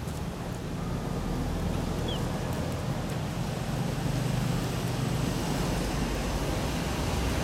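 Steady low rumble of outdoor background noise, growing a little louder about a second in.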